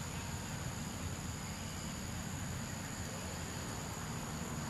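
Steady outdoor background noise: a low rumble under a constant high-pitched insect drone, with no distinct events.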